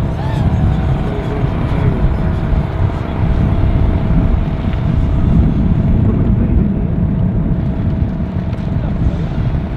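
Wind rumbling on the microphone in open air, with a faint steady motor hum over it that wavers in pitch early on, from a distant 250-size brushless FPV racing quadcopter in flight.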